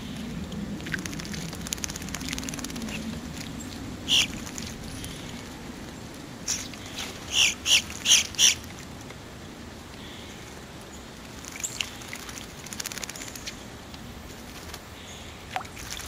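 Eastern bluebirds bathing in a shallow bird bath, fluttering their wings in the water. One short splash comes about four seconds in, then a quick run of about five splashes a couple of seconds later, with a few fainter flicks afterwards.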